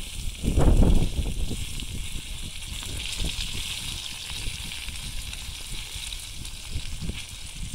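Toasted bread torn by hand with a loud crunch about half a second in, then soft scraping and dabbing as the bread is dragged through the fried eggs in a cast iron skillet. Underneath is a faint steady hiss, the skillet sizzling over the charcoal.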